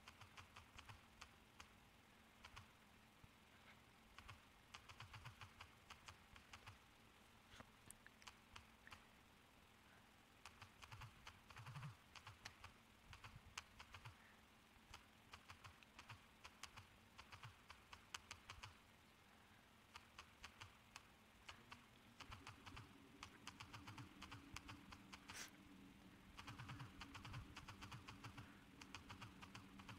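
Faint, quick clicks of typing on a smartphone's touchscreen keyboard, coming in bursts of taps with short pauses between words. A low steady hum comes in about two-thirds of the way through.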